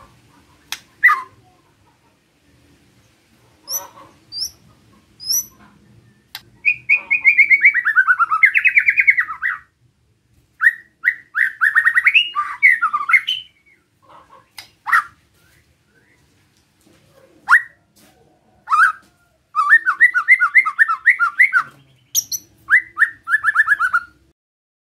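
White-rumped shama (murai batu) giving its 'besetan' calls: several bursts of rapid, harsh, repeated notes, with single sharp calls and a few short high whistled notes between the bursts. These are the scolding phrases that keepers play to provoke other shamas into singing.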